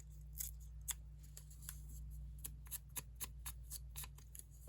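Paper being handled at a work table: soft, irregular clicks and rustles of paper cut-outs being picked up and placed.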